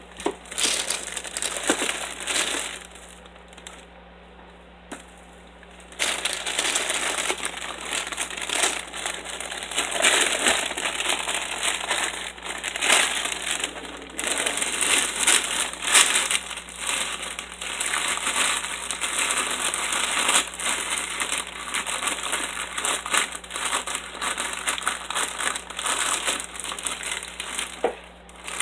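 Thin plastic shopping bag crinkling and rustling as it is handled, almost without a break, with a quieter lull from about three to six seconds in.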